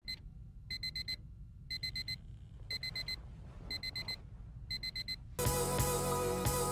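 Digital alarm clock beeping in groups of four quick high beeps, about one group a second. About five seconds in the beeping stops and music begins.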